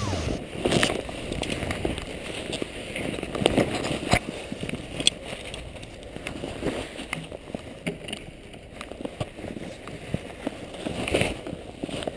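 Handling noise from a small camera held in a gloved hand with a tow rope: irregular rustling, scraping and scattered sharp knocks.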